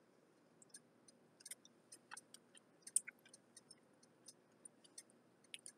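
Faint, irregular clicks of a mouth chewing a cherry Kool-Aid pickle slice with lips closed, several a second.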